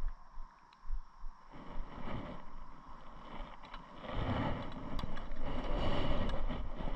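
A few soft thumps, then a rough rumbling, rustling noise close on the microphone that grows and becomes louder about four seconds in.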